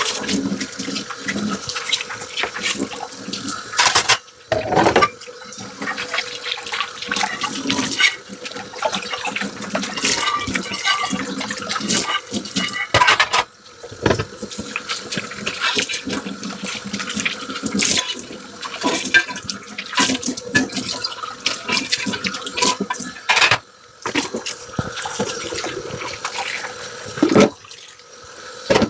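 Tap water running into a sink while dishes are washed by hand, with frequent clinks and knocks of the dishes. The sound drops out briefly three times.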